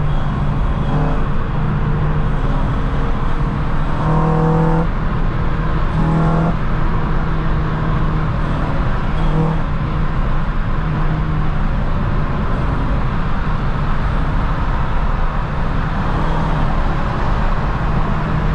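Honda Civic Si's 2.0-litre four-cylinder engine and road noise heard inside the cabin while cruising at a steady speed, a constant low hum and rumble. Two brief pitched tones stand out, about four and six seconds in.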